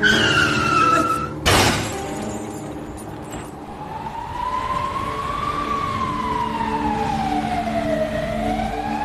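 Film sound effects of a car hitting a person: a brief high screech, then a loud crash about a second and a half in. From about three and a half seconds an emergency siren wails, rising and falling slowly.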